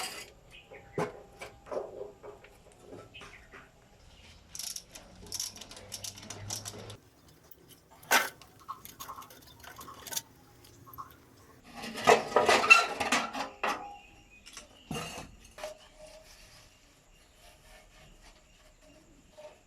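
Metal parts and tools being handled: scattered sharp clinks and knocks, with a louder burst of clattering about twelve seconds in.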